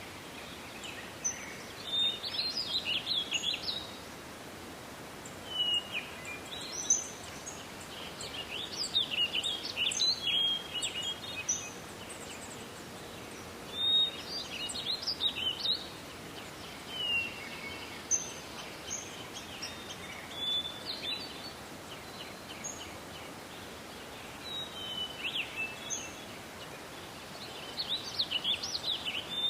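A songbird singing short, quick phrases, each one to two seconds long and repeated every few seconds, over a steady hiss of forest background.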